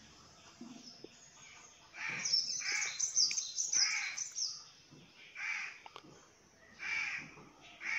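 A crow cawing repeatedly, a short harsh call about once a second starting about two seconds in, with small birds chirping high over the first few calls.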